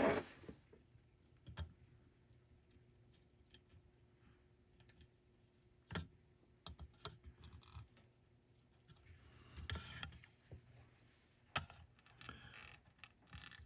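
Faint, scattered light clicks and taps of hand soldering on a circuit board held in a clamp, with a brief soft rustle about ten seconds in.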